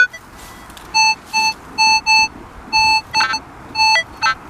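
Minelab CTX 3030 metal detector giving a string of short, pitched target beeps, about eight of them, as it is swept over a signal in freshly dug soil; most beeps share one pitch, with a few at a different pitch mixed in.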